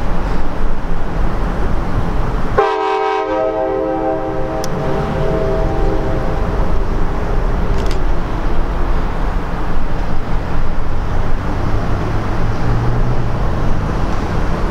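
Diesel locomotive air horn sounding one long chord of several notes, starting abruptly about two and a half seconds in and fading out over about four seconds, over a steady low rumble.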